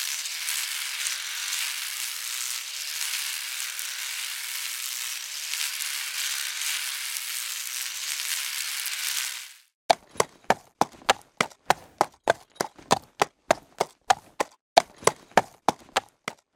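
Miniature DIY chaff cutter running, its small motor and blade whirring steadily as they shred grass. It cuts off sharply about nine and a half seconds in. Sharp hoofbeat knocks in a clip-clop rhythm follow, about three a second.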